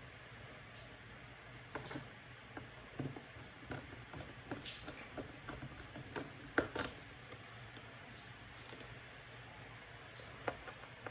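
Scattered light clicks and taps of a small screwdriver and the aluminium bottom case being handled while the MacBook Pro's case screws are driven back in. The sharpest pair of ticks comes just past the middle and another near the end, over a low steady hum.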